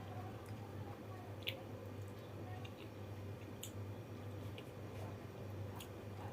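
Soft, wet eating sounds: squelching and chewing of water-soaked rice, with a few sharp mouth clicks, over a steady low hum.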